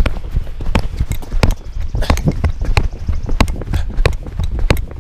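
Running footsteps, about three strides a second, each footfall a sharp thud, over a low rumble of the handheld microphone being jolted with each stride.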